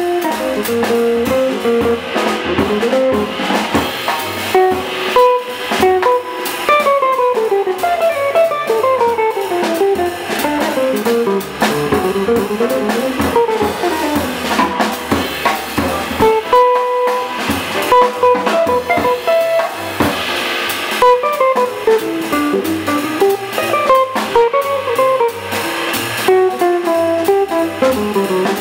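Jazz quintet playing: a hollow-body archtop electric guitar takes a solo in fast single-note runs over walking double bass, piano and a Gretsch drum kit.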